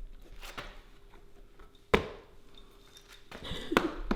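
Two sharp taps or knocks, one about two seconds in and one near the end, with a few faint ticks between them. Otherwise the room is quiet.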